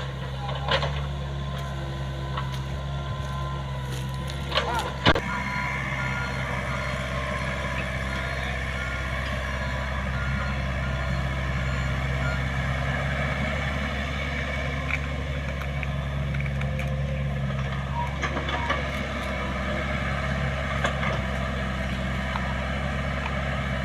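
Komatsu PC45MR mini excavator's diesel engine running steadily while it digs. A few sharp knocks come in the first five seconds, and a run of short, evenly spaced beeps sounds from about five seconds in to about halfway.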